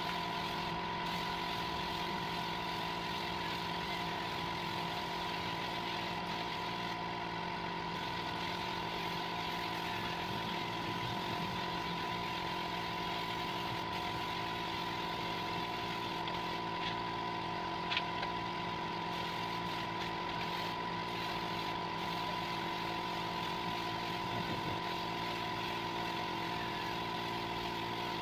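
Air compressor running steadily, a motor hum with a fixed whine, supplying an air spray gun that is spraying paint. A single short click about 18 seconds in.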